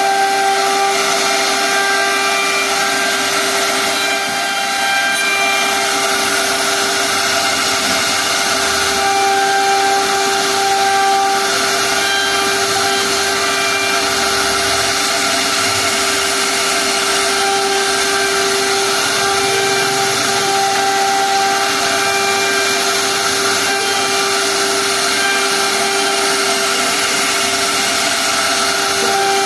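CNC machine running steadily: a constant high whine over a continuous hiss.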